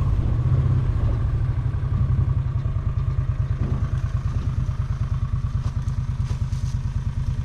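A vehicle engine running steadily, with a fast, even throb.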